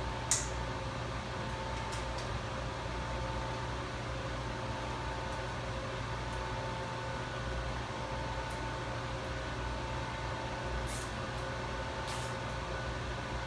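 Steady mechanical hum of an equipment room, with a low rumble and a few faint held tones, like fans and electrical gear running. A few short, light clicks come over it, near the start, about two seconds in, and twice near the end, as cables are handled overhead.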